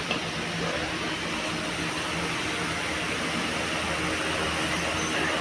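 Steady road and engine noise heard inside a Hyundai Creta's cabin while it is driven, an even rush with no distinct knocks or squeaks.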